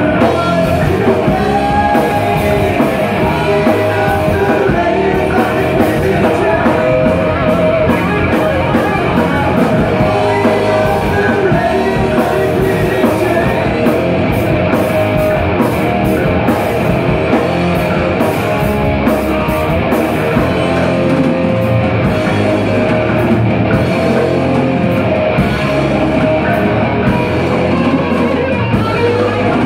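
Live rock band playing loudly: electric guitar, bass guitar and drum kit, with a man singing lead into a microphone.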